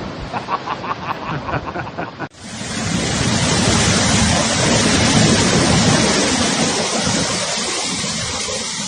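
Storm wind and heavy surf: rushing wind on the microphone with breaking waves. About two seconds in it cuts suddenly to a louder, steady rush of wind and surf.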